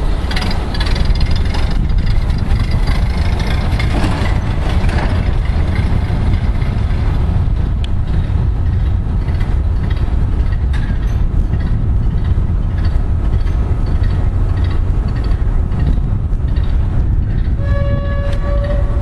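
1929 Ford Model A truck's four-cylinder engine running while the truck drives, a steady low rumble with road noise. A short steady pitched tone sounds near the end.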